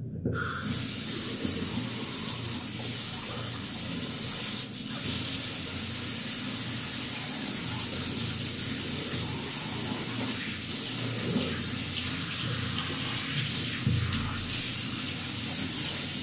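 Tap water running steadily into a bathroom washbasin, coming on suddenly at the very start as a steady hiss.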